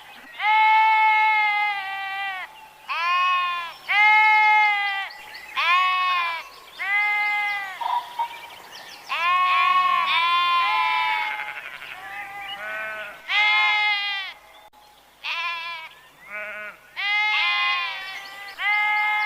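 Sheep bleating over and over, one call after another with short gaps, each a drawn-out pitched baa that rises and falls; calls at several pitches suggest more than one animal.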